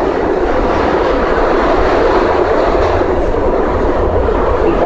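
SEPTA Market-Frankford Line train car in motion between stations, heard from inside the car: the steady running noise of the wheels on the rails.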